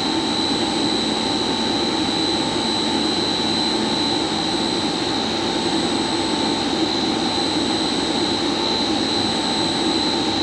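Steady machinery noise, fan-like and rushing, with a constant high-pitched whine over it that does not change.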